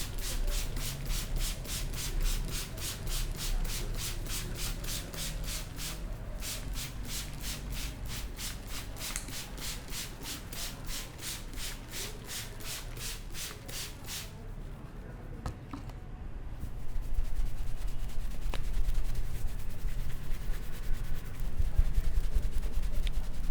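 Head massage: fast, even rubbing strokes over hair and scalp, about four a second, that stop about fourteen seconds in, followed by duller, lower rubbing.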